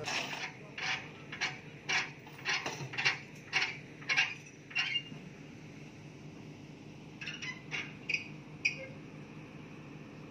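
Sharp metal-on-metal knocks with a slight ring, about two a second for the first five seconds, then a few more near the end. A low, steady engine hum runs underneath.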